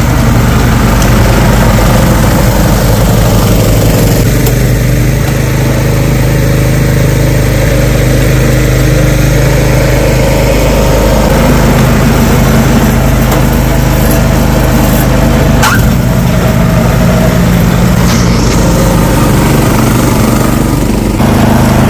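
Snow blower engine running steadily and loud, clearing deep snow.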